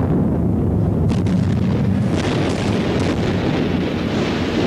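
Deep, continuous rumble of a structure collapsing in an explosive controlled demolition, with a few sharp cracks about a second in and again between two and three seconds in.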